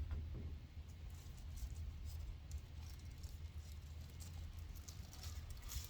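Faint rustling and light clicks of cardboard and plastic packaging being handled as a dash cam is taken out of its box, over a low steady hum.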